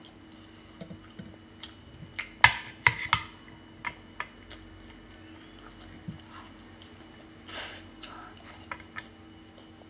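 Close-up eating sounds: scattered sharp clicks and knocks of chopsticks against a bowl, loudest in a quick cluster about two and a half to three seconds in, and a short slurp of instant noodles near eight seconds in, over a faint steady hum.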